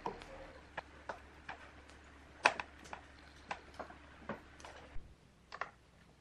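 Sharp metallic clicks, about two a second at uneven intervals and one louder near the middle, as a hex key is turned in hex-socket screws and taps them while they are driven down through a woofer's aluminium mounting frame.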